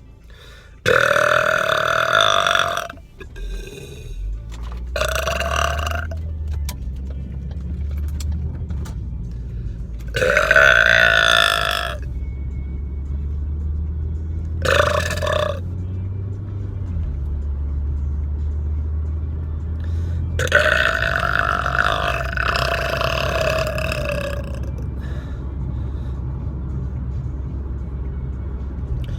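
A man belching loudly five times. The first and last belches are long and drawn out, the last about four seconds. The steady low rumble of the car runs underneath.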